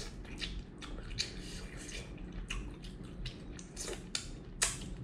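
A man eating crab with his fingers: chewing and sucking the sauce off his fingers, an irregular run of short wet smacks and clicks.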